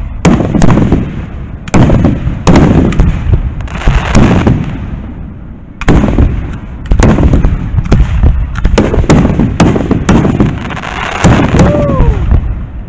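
Aerial fireworks shells bursting overhead in a dense barrage of loud booms in quick succession, with a short lull about five seconds in.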